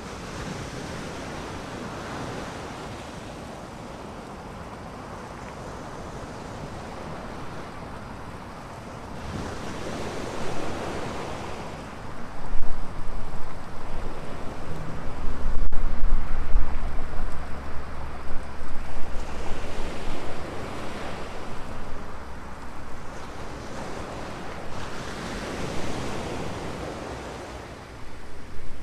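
Ocean waves breaking and washing onto the beach, the surf swelling and fading several times. Wind buffets the microphone with a low rumble through the middle stretch.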